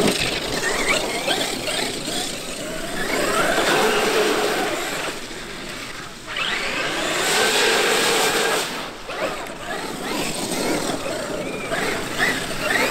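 Traxxas X-Maxx brushless electric RC monster truck driving hard on wet sand: its motor and drivetrain whine rises and falls in pitch several times as it speeds up and slows, over the hiss of tyres throwing sand and water.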